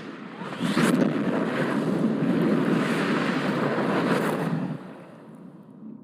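A steady rushing noise with a rising whoosh about a second in. It drops away sharply near the end.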